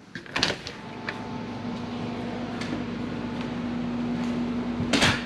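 A door knocks open, then a steady mechanical hum with a low held tone grows gradually louder, and a sharp knock comes near the end.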